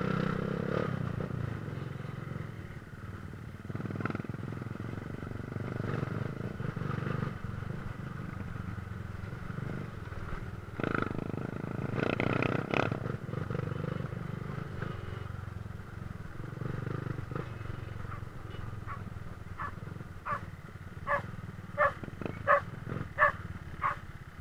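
Dirt bike engine running at low, varying throttle along a trail. Near the end a dog barks about six times in quick succession, louder than the engine.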